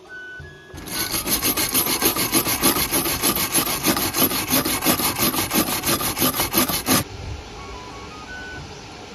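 Gasless flux-core MIG arc welding on an EENOUR MIG120L 100 V inverter welder: a harsh, rapidly pulsing crackle starts about a second in and cuts off abruptly about six seconds later.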